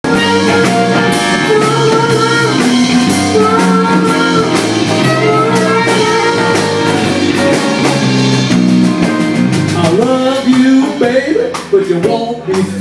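Live blues band: harmonicas wailing long, bending notes over electric guitar, bass and a drum kit. Near the end the playing breaks up into shorter phrases.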